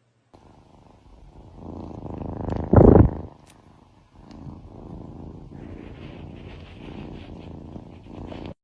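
A domestic cat purring, a low steady rumble that swells over the first few seconds. A brief, much louder burst comes about three seconds in, and the sound cuts off abruptly just before the end.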